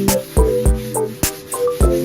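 Background music with a steady drum beat: deep bass kicks, crisp hi-hat-like ticks and held synth chords.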